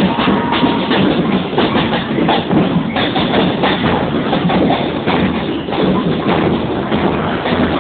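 Marching band music at a parade, with drums striking about two or three times a second over a dense, noisy wash of sound.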